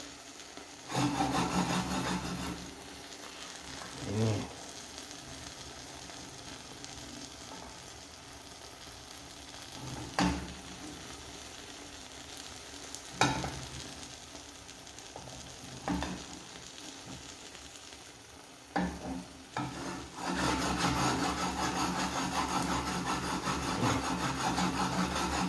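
Eggs and tomato slices frying in a pan: a steady sizzle, broken by a few short knocks. It grows louder over the last few seconds.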